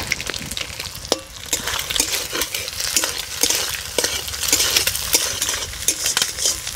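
Eggs sizzling in hot oil in a kadai while a spatula stirs and breaks them up into crumbly scrambled bits, with frequent quick clicks and scrapes of the spatula against the pan.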